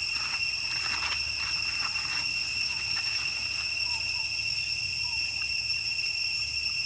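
Steady, unbroken high-pitched insect drone, with a few faint short chirps over it.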